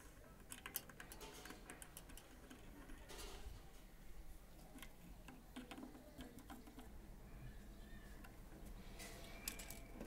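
Faint, irregular small clicks and taps of wire ends and metal connectors being handled and pushed onto an electric water heater's element and thermostat terminals.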